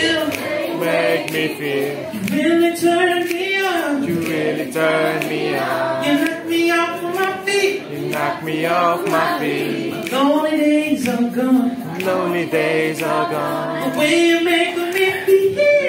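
Live singing with acoustic guitar accompaniment, a woman's voice leading with long held notes that glide between pitches.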